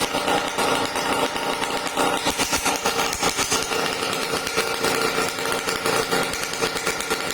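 Drag bike motorcycle engine running with a fast, uneven pulsing beat.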